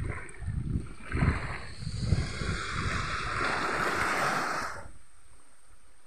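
Small waves washing up a sandy shore: a hissing wash that swells and dies away about five seconds in. Wind buffets the microphone in the first two seconds.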